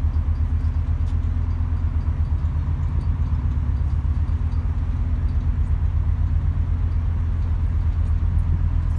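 Car ferry's engines and propulsion running under way: a steady low rumble with a fast, even throb.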